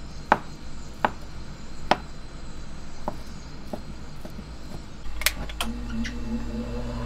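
Chef's knife chopping roasted chicken on a plastic cutting board, about five sharp blows roughly a second apart. About five seconds in, a gas burner is lit: two sharp clicks and then a low steady hum.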